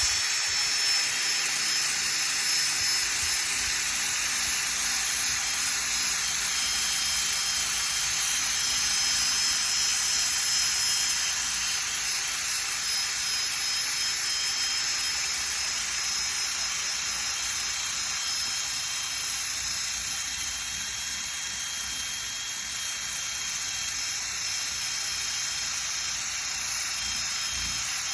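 Electric drill fitted with a sanding attachment, running steadily and sanding old paint off a vehicle's hood: a continuous hiss with a thin high motor whine, starting suddenly just before and holding through.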